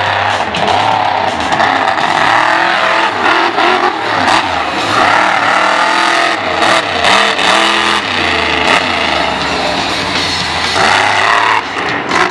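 Scarlet Bandit monster truck's engine revving hard, its pitch rising and falling again and again as the truck is driven through a freestyle run.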